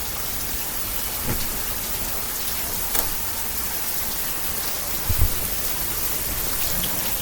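Heavy rain pouring down: a steady hiss of the downpour, with a few sharp ticks of drops and a brief low thump about five seconds in.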